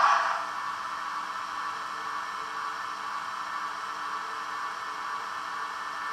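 Roco HO-scale model of an SBB Re 460 electric locomotive running slowly along the track, giving a steady whirring hiss. It is louder at the very start and settles within the first half-second.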